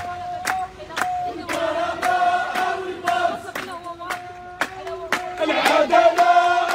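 Crowd of protesters chanting slogans in unison, with sharp beats keeping time about twice a second.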